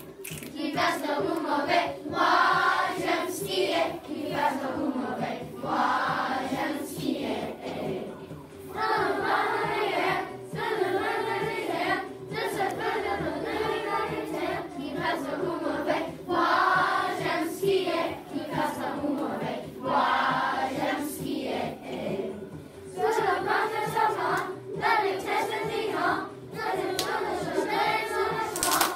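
A group of children singing a song together in unison, in phrases of a few seconds with short breaks between them.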